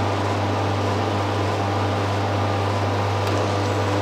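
Countertop soft-serve ice cream machine running with a steady electric hum while vanilla soft-serve is drawn into a cone.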